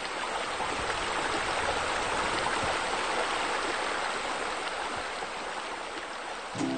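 Steady rush of running water, like a stream or a small waterfall. It swells up, holds, and eases off. Music starts just before the end.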